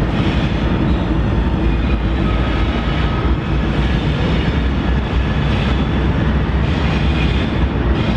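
Diesel-electric freight locomotives running as they move along the yard track: a steady, loud, low engine rumble.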